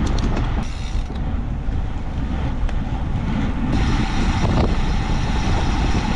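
Wind rushing over the microphone of a handlebar-mounted camera and tyre rumble on asphalt from a road bike riding at speed, with a few short clicks. About four seconds in, the sound turns brighter and hissier.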